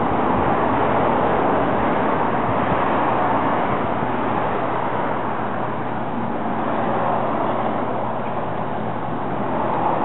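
Steady road traffic noise, a continuous even rush of passing vehicles that eases a little mid-way and swells again near the end.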